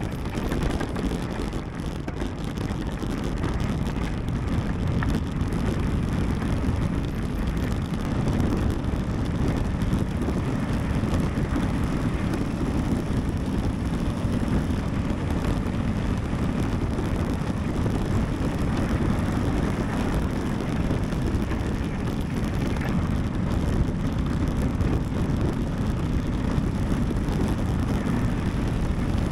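Steady wind noise on the microphone mixed with the low rumble of mountain-bike tyres rolling downhill.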